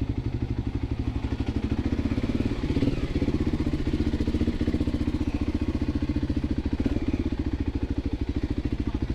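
Voge 300 Rally's single-cylinder engine running at low revs, a steady rapid even pulse, a little louder about three seconds in.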